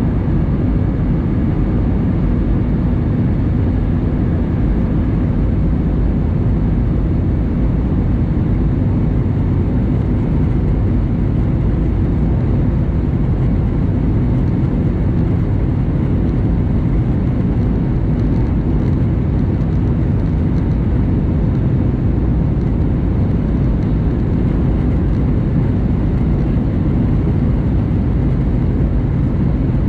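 Steady cabin noise of an airliner in flight: jet engines and rushing air heard from inside the passenger cabin, a deep even rumble with a fainter hiss above it.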